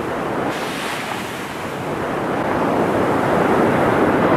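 Sea waves washing up a sandy beach. The surf grows louder over the last couple of seconds as a wave runs up over the sand, with wind buffeting the microphone.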